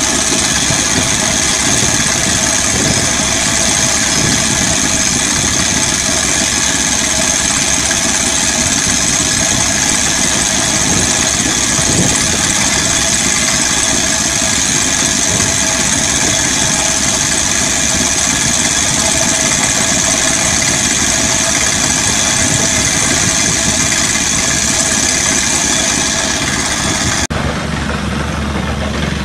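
AD-4 crawler rock drill rig running at work: a loud, steady mechanical din with a high steady whistle. About 27 seconds in, the sound cuts abruptly to another crawler drill running, duller and less bright.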